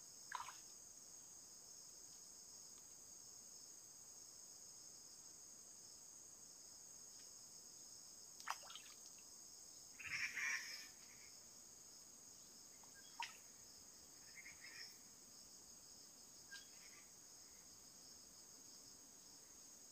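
Insects chirring steadily in a high pitch, with a few brief chirps and faint clicks; the loudest chirps come about halfway through.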